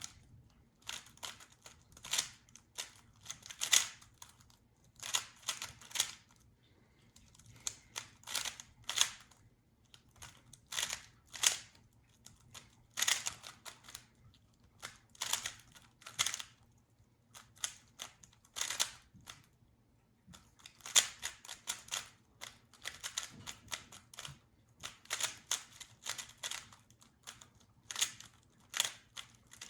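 Plastic Rubik's cube being turned quickly by hand, a clicking clatter of layer turns in irregular bursts with short pauses between them.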